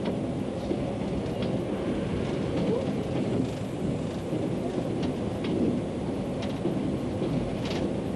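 Train running at speed, heard from inside the driver's cab: a steady low rumble of the running train, with faint clicks now and then.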